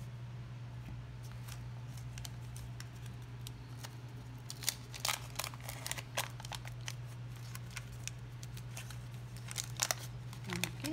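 Wax-paper wrapper of a 1986 Topps baseball card pack crinkling and tearing as it is opened and the cards are handled: a run of sharp, irregular crackles starting about halfway through, over a steady low hum.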